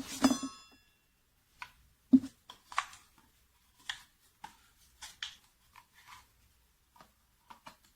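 Scattered light clicks and knocks of hands handling a tool and work piece, with a brief metallic ring right at the start; the oscillating tool is not running.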